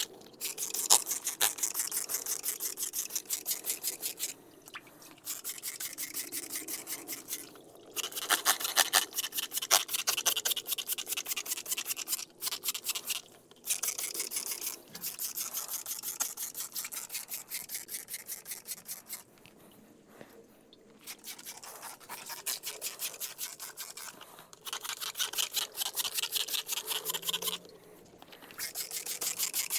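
A stiff brush scrubbing grease off a truck's steel frame: quick back-and-forth strokes in bouts of a few seconds, with short pauses between them.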